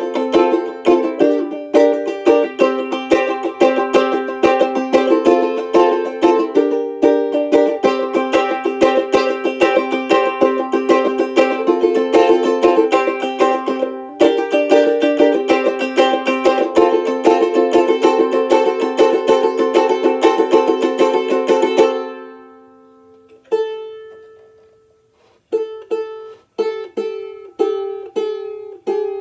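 Tenor banjolele strummed in a fast, steady rhythm, with chord changes every second or two. About 22 seconds in, the strumming stops and the chord rings out; after one more ringing chord, slower strumming starts up near the end.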